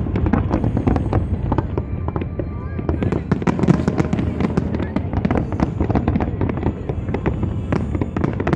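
Fireworks display: a dense, continuous run of rapid bangs and crackles over a low rumble.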